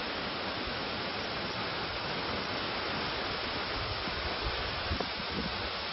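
Steady rushing of falling water from a waterfall, with a few soft low thumps about four to five seconds in.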